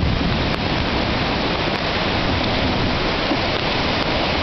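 A river in flood after torrential rain, its swollen water rushing past in a steady, even wash of noise.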